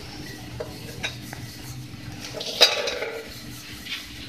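Wooden rolling pin rolling out stuffed paratha dough on a wooden board: scattered light clicks and knocks as the pin presses and is shifted, with one sharp knock about two and a half seconds in.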